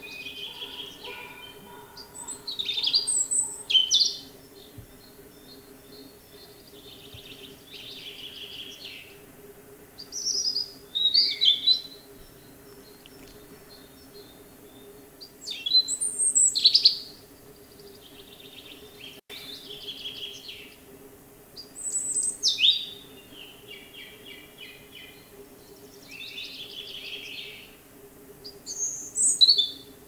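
European robin singing: five high, quick, warbling phrases of a second or two each, spaced several seconds apart. Quieter bird song fills the gaps, over a faint steady low hum.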